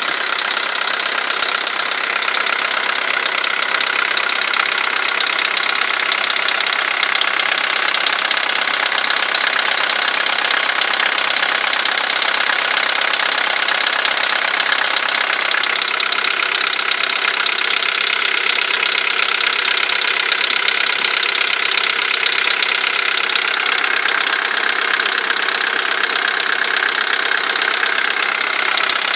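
VW Golf III 1.9 TD (AAZ) four-cylinder turbodiesel engine running steadily with a fast, even knocking and ticking noise.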